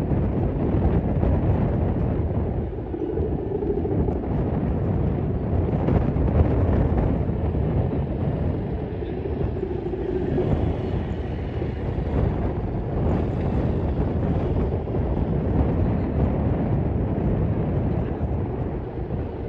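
Strong wind buffeting the microphone: a steady low rumble that rises and falls a little.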